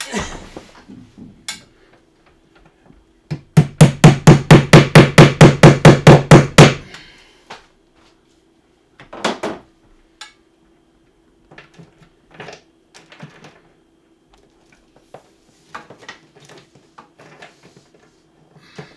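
A rapid run of about sixteen loud hammer blows, some five a second, lasting about three seconds, followed by a few scattered lighter knocks.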